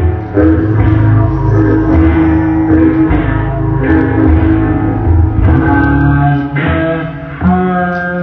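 Rock-style music with guitar over a pulsing bass line.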